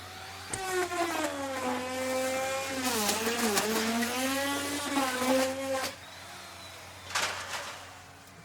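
Electric wood router running with a high, steady whine. Its pitch sags and wavers for a few seconds as the bit is loaded by cutting into wood, then recovers. The whine stops about six seconds in, and a brief noisy burst follows about a second later.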